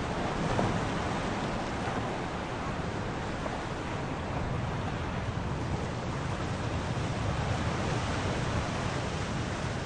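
Steady rushing sea ambience: waves and wind over open water, an even hiss with no distinct events.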